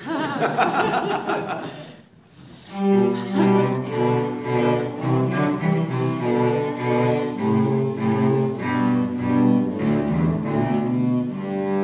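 Two cellos playing a duet with bowed notes. After a short break about two seconds in, they play held notes that change pitch about every half second.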